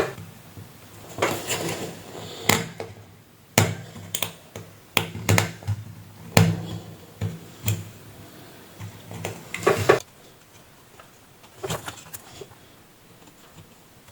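Irregular small clicks and knocks of tools and parts being handled on an electronics repair bench, growing sparse and faint after about ten seconds.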